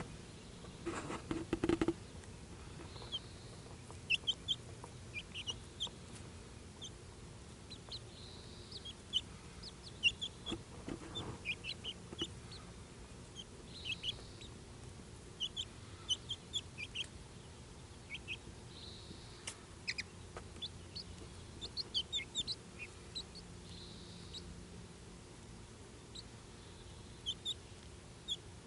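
Six-week-old chicks peeping, with many short, high chirps scattered throughout. A few knocks come in the first two seconds.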